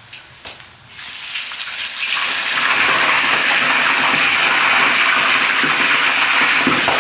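Pork belly frying in a wok of hot oil: a few small pops at first, then from about a second in the oil breaks into loud, dense, steady sizzling and spattering. Water on the meat makes the oil spit.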